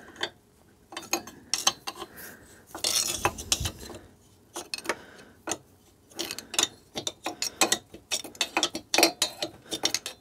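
Irregular metal clicks, clinks and scrapes as the Suzuki K10P engine's cylinder head is levered loose on its studs, with a denser stretch of scraping about three seconds in.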